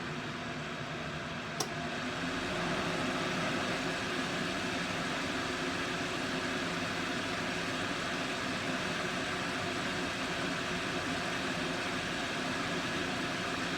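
Vornado Velocity 3 space heater's blower fan running, a steady rush of air. A single sharp click comes about a second and a half in, after which the noise is slightly louder.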